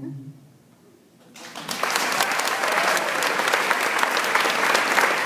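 The last note of an acoustic guitar song fades out, then after a short hush an audience starts applauding about a second and a half in, and the clapping carries on steadily.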